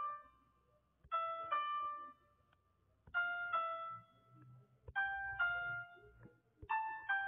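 Background music: a piano playing a gentle phrase of paired chords, one pair about every two seconds, each fading before the next.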